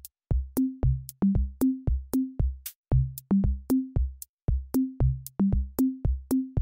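Background electronic music: a steady beat of low thumps that step between a few low notes, each struck with a sharp click, two to three a second.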